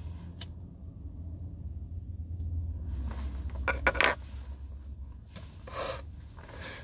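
A lighter clicks once as a blunt is lit and puffed on, over a low rumble. Short breathy exhales of smoke follow about four and six seconds in.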